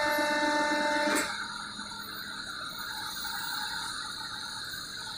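Coach bus driving off a ferry across the steel-grated ramp, its wheels setting the metal plates clattering. A steady pitched hum with several overtones cuts off sharply about a second in.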